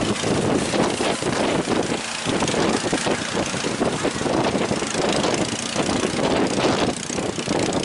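A boat's engine running steadily under a constant rushing noise, with no breaks or sudden events.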